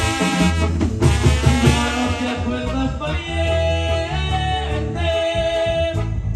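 A tamborazo band playing a corrido instrumental passage: saxophones and trombones hold sustained melody lines over a steady bass drum and cymbal beat.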